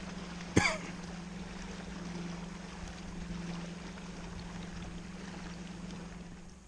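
Light water sounds around a kayak on a calm lake over a steady low hum, with one short sharp chirp sweeping downward about half a second in.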